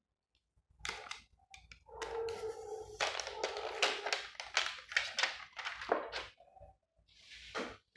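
Hands handling a new smartphone fresh out of its box: a run of crinkling, rustling and tapping noises from the phone's plastic packaging and casing, densest in the middle and tailing off near the end.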